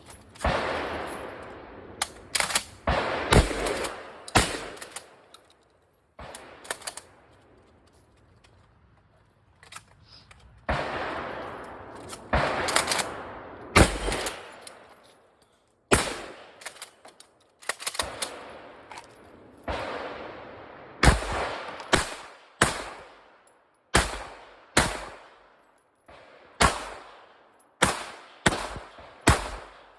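Gunshots from a competitor shooting a 3-gun stage, each shot echoing briefly. A few scattered shots come first, then a quieter stretch of several seconds, then a steady string of single shots about one a second.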